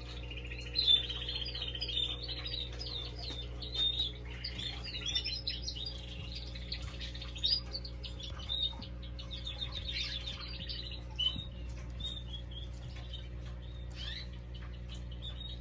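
Pet birds chirping and twittering in many short, quick calls over a steady low hum.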